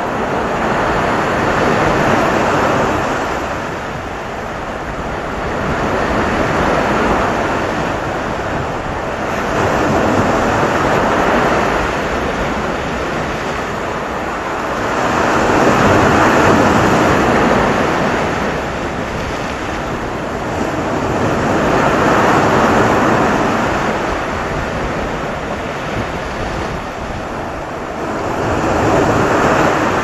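Ocean waves breaking: a continuous rushing wash of surf that swells louder and fades back about every five to six seconds as each wave comes in.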